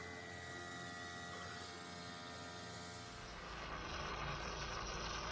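A steady machine hum holding several fixed tones; about three seconds in it gives way to a louder, rougher running noise with more low rumble.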